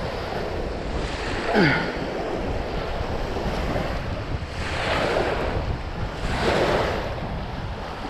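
Strong gusty wind buffeting the microphone over waves washing in shallow water, with two louder rushes about five and six and a half seconds in.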